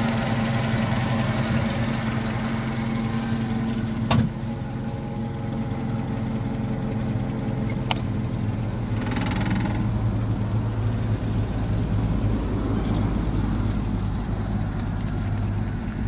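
Engine of a CAT GP35NM 3.5-tonne LPG forklift idling steadily. A sharp knock comes about four seconds in and a lighter click near eight seconds, then a brief rushing noise, after which the low engine note sounds fuller.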